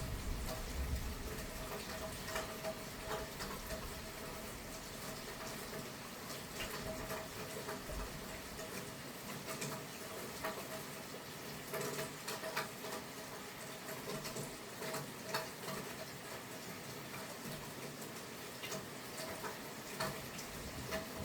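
Light rain falling: a steady soft hiss with scattered ticks and clicks of drops hitting nearby surfaces.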